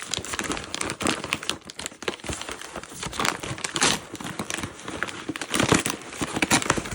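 Wrapping paper being crinkled and torn by hand as a package is unwrapped, in an irregular run of rustles and crackles.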